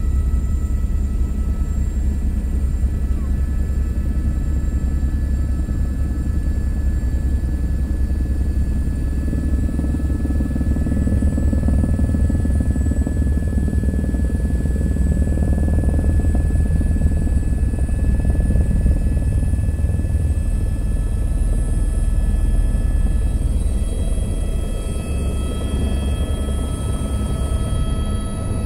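Helicopter rotor and turbine noise heard from on board: a steady low rumble with a high, even whine above it.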